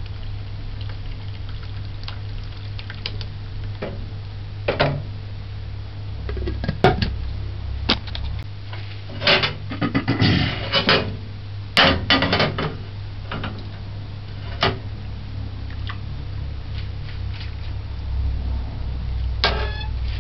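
Scattered clinks and knocks of a jug and a metal ladle against an aluminium pot as ginger juice is poured into steeped sorrel and stirred, with a cluster of knocks in the middle, over a steady low hum.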